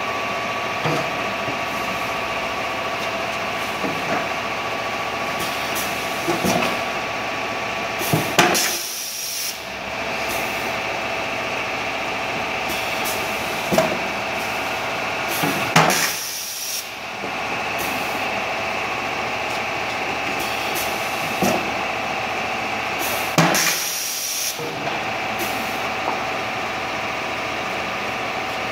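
Automatic 5-gallon water bottle decapping machine running with a steady hum, its air cylinders clicking. Three times, about seven to eight seconds apart, there is a short, loud hiss of compressed air as the machine cycles.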